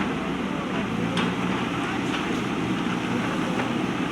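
Backhoe loader's diesel engine running steadily, with one sharp knock a little over a second in.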